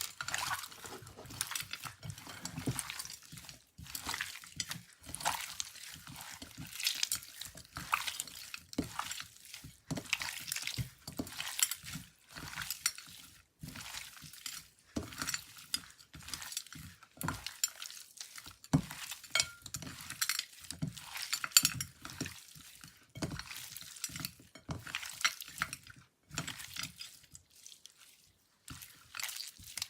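Store-bought slime being stirred and mixed, a continuous run of irregular wet clicks and squelches with a few short pauses.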